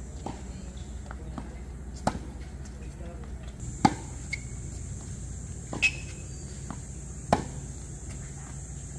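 Tennis rally on a hard court: a tennis ball struck crisply by rackets about every one and a half to two seconds, with softer bounces of the ball between the hits.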